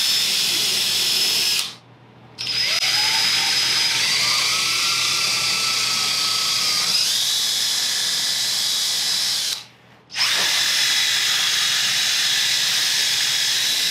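Power drill spinning a brush attachment, scrubbing the old foam backing off a car headliner board. It runs in three long spells, stopping briefly about two seconds in and again near ten seconds, and its pitch rises each time it spins back up.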